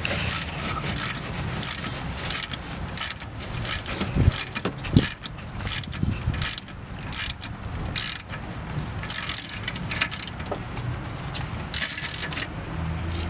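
Ratchet wrench clicking in short, uneven runs as it turns the forcing screw of a harmonic balancer puller, the balancer creeping slowly off the crankshaft of a 5.3 L LS V8. A couple of low metallic knocks come about 4 and 5 seconds in.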